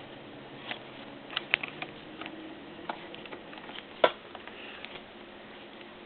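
Scattered light clicks and taps from hands and a screwdriver working at the screws and plastic parts of a Dell Inspiron 8500 laptop, with one sharper click about four seconds in.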